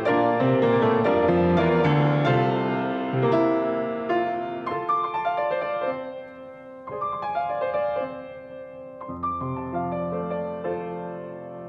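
Piano playing slow music, full chords at first, growing softer about halfway through.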